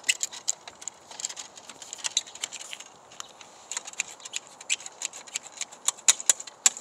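Irregular metal clicks and clinks from a Thule Hullavator kayak lift's roof-rack mount as its stiff release pin is worked loose by hand.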